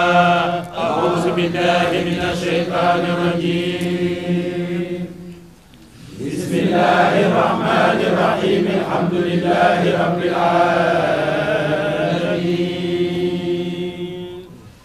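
A group of men chanting dhikr together in unison, long drawn-out phrases with a short break about five or six seconds in, fading away near the end.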